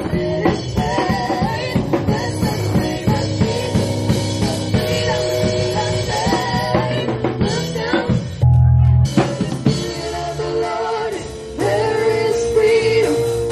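Live band playing a song: several singers on microphones over a drum kit and a Nord Electro stage keyboard. Past the middle the singing breaks off for a few seconds under a loud low note, then comes back with a long held note.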